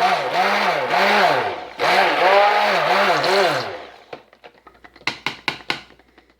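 Stick blender running in raw cold process soap batter, mixing lye solution into the oils; its motor pitch rises and falls about twice a second as it is worked. It stops about four seconds in, followed by a few sharp taps.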